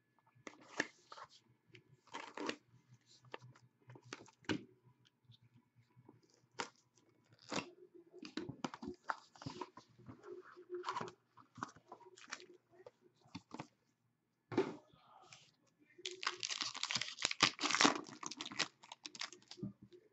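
Hands opening and handling trading-card packaging: scattered rustles and taps of cardboard and wrapper, then a longer stretch of tearing and crinkling near the end as a pack is torn open.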